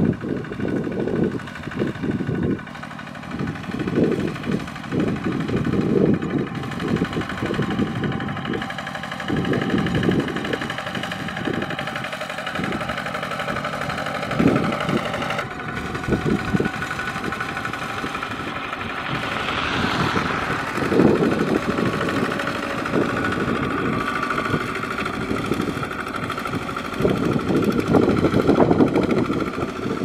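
Kubota ZT155 single-cylinder diesel engine on a walking tractor running steadily under load as it ploughs a flooded rice paddy, with uneven low rumbling throughout.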